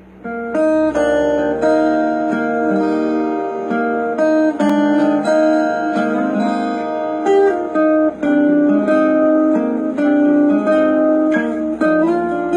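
Instrumental opening of a Thai pop ballad: a guitar playing picked and strummed chords, each note ringing out, starting about half a second in.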